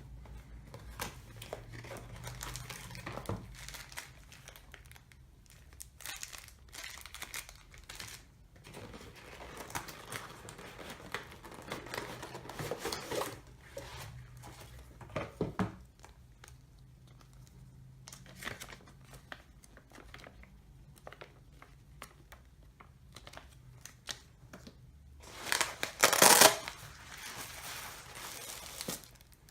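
Binocular packaging being unpacked by hand: intermittent rustling, crinkling and tearing, with the loudest burst of crinkling about 26 seconds in.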